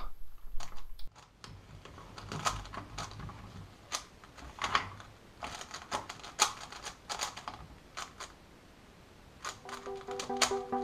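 Plastic speed-cube puzzle being turned rapidly by hand: irregular clacking clicks as its layers snap round, with a brief lull about eight seconds in. Music comes in near the end.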